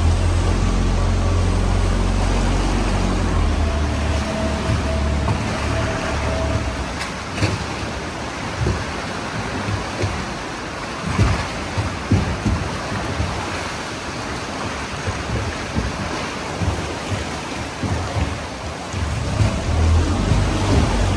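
Small open boat's motor running with a low drone that is strongest in the first few seconds, while water sloshes and slaps against the hull in irregular thumps.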